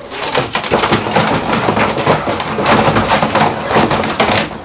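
Continuous crackling, scraping and rattling of plastic storage boxes and a plastic basket being handled and shifted, with many small clicks and knocks throughout.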